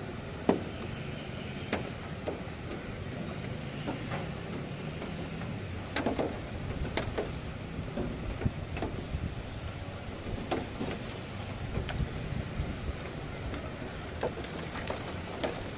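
Heavy thunderstorm rain with wind: a steady rushing hiss over a low rumble, broken by irregular sharp taps.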